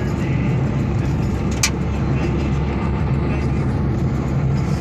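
Steady low rumble of road and wind noise from a vehicle travelling along a highway, heard from on board, with one sharp click about a second and a half in.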